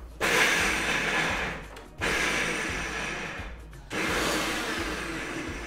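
Kitchen mixer grinder with a steel jar mincing cauliflower, run in three short pulses of about two seconds each. Each pulse starts sharply and dies away as the motor is released.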